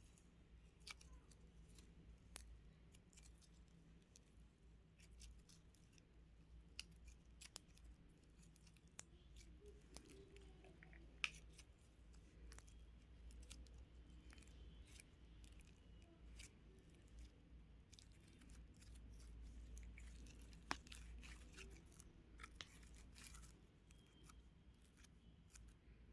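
Quiet, irregular small clicks and crunches from craft materials (slime, beads, clay or squishies) being handled close to the microphone, with two sharper clicks standing out, one near the middle and one later on.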